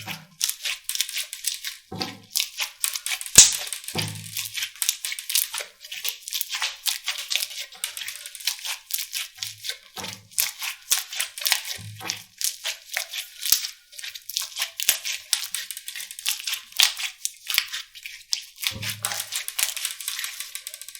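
Slime being squeezed and pressed by hand, giving dense, irregular crackling and popping clicks with soft dull thuds every couple of seconds and one sharper, louder pop about three and a half seconds in.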